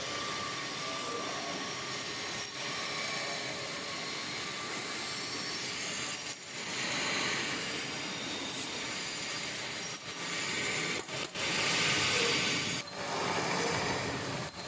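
Metal lathe running while machining engine valves: a steady mechanical noise, strongest in the upper range, with a few short breaks.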